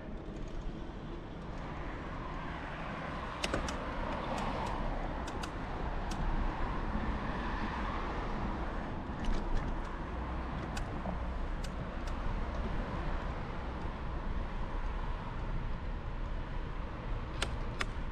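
Road traffic noise with a steady low rumble and a vehicle passing, swelling and fading over several seconds. Scattered short, sharp clicks sound through it.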